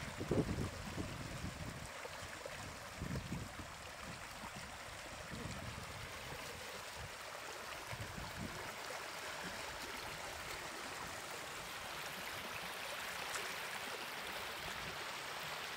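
Steady rush of flowing water, with a few dull low thumps in the first few seconds.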